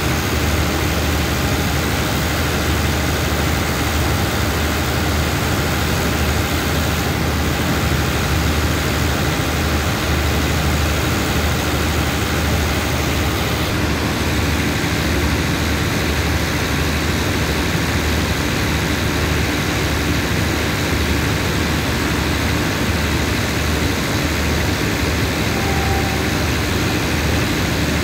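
Steady low drone of a diesel train's engines idling while the train stands at the platform, with a constant hum and no change in pace.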